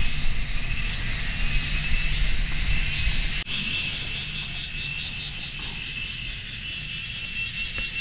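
Outdoor forest ambience: a steady low rumble, like wind on the microphone, with a steady, pulsing high insect buzz over it. The sound breaks off abruptly about three and a half seconds in, and the rumble is weaker after that.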